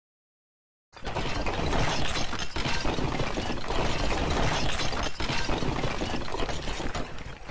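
Sound effect of a brick wall crumbling, with bricks tumbling and clattering over a low rumble. It starts suddenly about a second in and runs steadily, with a few sharper knocks, until it fades near the end.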